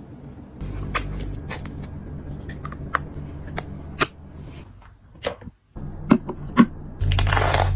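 Small plastic clicks and taps as a clear plastic case of foam earplugs is handled and set down on a shelf, over a low steady hum. Near the end a louder rustle starts.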